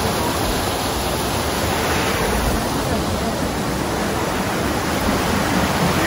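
Stream water rushing over a small rocky cascade, a steady even rush.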